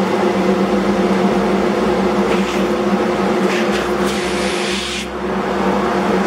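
King dust collector running steadily, its motor and impeller giving a constant hum with air rushing through the hoses and a cyclone separator on a garbage can. The air rush swells for about a second, about four seconds in, as the open end of the intake hose is handled.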